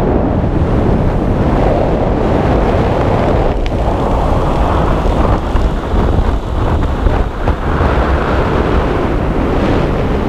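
Wind buffeting a camera microphone during a parachute descent: a loud, dense rushing noise that rises and falls unevenly.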